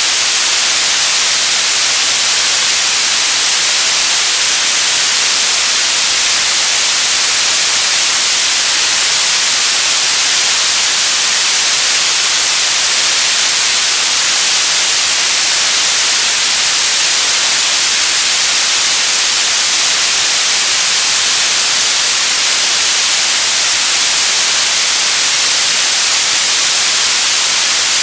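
Radio static: a loud, steady hiss, weighted toward the high end, with no tones or crackles and no change in level.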